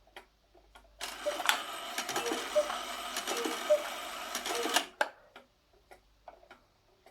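Antique cuckoo clock striking 3 o'clock: the strike train whirs and rattles for about four seconds while the bellows pipes give three soft two-note cuckoo calls, evenly spaced. The clock ticks steadily before and after.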